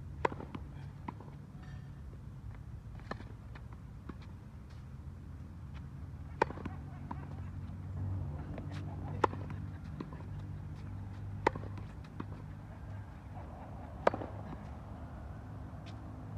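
Tennis ball struck by a racket. A serve comes a moment in, then a rally with a sharp hit every two to three seconds and fainter bounces between, over a steady low background hum.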